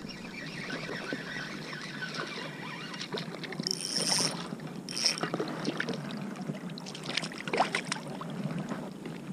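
Water splashing and lapping around a wading angler while a hooked speckled trout is reeled in. The fish splashes at the surface twice, about four seconds in and again a second later.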